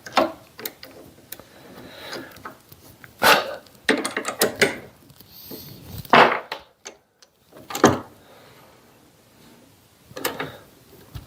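Scattered knocks and clicks of metal tools and parts being handled while a pin is fitted into the mini lathe's drill chuck, with the loudest clunks at about three, six and eight seconds in and a short run of clattering in between.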